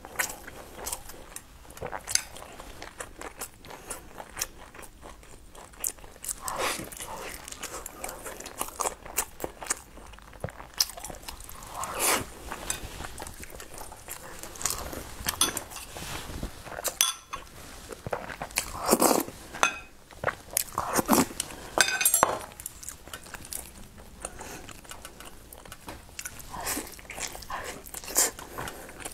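Close-miked chewing and biting of sticky rice dumplings (zongzi), with scattered sharp clicks of chopsticks against a ceramic bowl.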